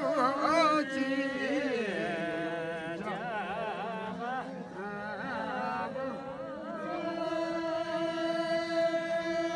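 A voice singing a wavering, ornamented chant-like melody that settles into one long held note in the second half.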